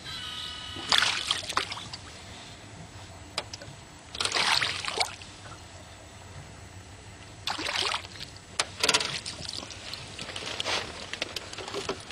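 A hooked fish splashing in the water beside the boat as it is grabbed by hand and landed, in several separate bursts of splashing.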